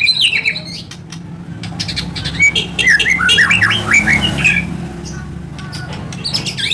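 White-rumped shama (murai batu) singing: a rapid, varied run of whistled glides and harsh chattering notes, densest about two to four and a half seconds in and starting again near the end. A steady low hum runs underneath.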